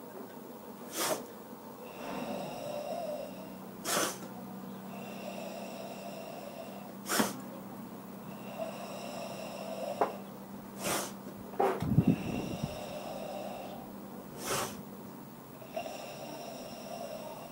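Ibuki breathing in karate: short, explosive inhalations about every three seconds, each followed by a long, deep, hissing exhalation with the abdomen and muscles tensed. A louder, deeper burst comes about two-thirds of the way through.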